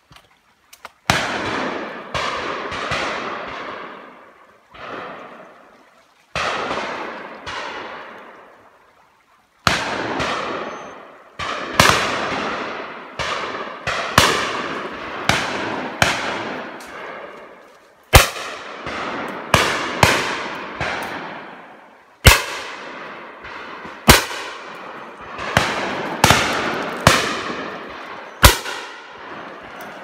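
Shotguns firing at driven game birds flying high overhead: a long, uneven run of shots from several guns, some loud and near, some fainter, often two in quick succession. Each shot echoes round the woods and dies away over a second or two.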